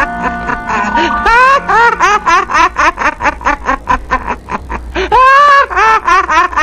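A comedic laughter sound effect: a high-pitched, cartoon-like voice laughing in quick repeated syllables, about four to five a second, with one longer held laugh about five seconds in. Steady musical tones sound under it in the first second.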